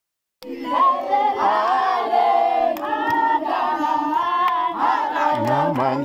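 A group of people singing together as a choir, starting about half a second in, with a few sharp clicks. A deeper voice joins near the end.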